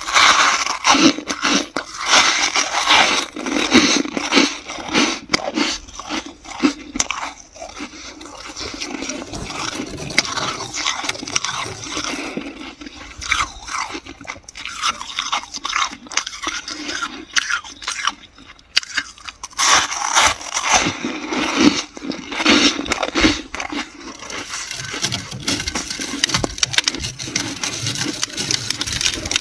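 Metal spoon scraping and scooping thick, fluffy freezer frost: a dense run of crisp crunches and scrapes, with a short lull about two-thirds of the way in.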